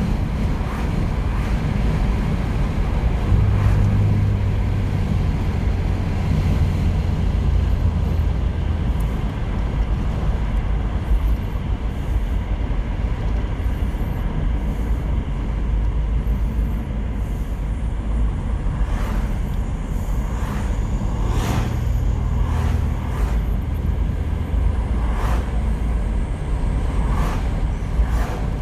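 Holden VP Commodore being driven, heard from inside the cabin: a steady low engine and road rumble. The engine note grows stronger twice, from about 3 to 8 seconds in and again around 21 to 24 seconds in. A few short knocks come in the last third.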